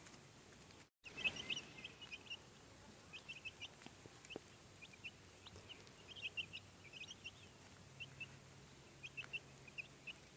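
Young chickens (Easter egger, olive egger and barnyard-mix chicks) peeping softly: many short, high chirps scattered throughout, often several in quick succession.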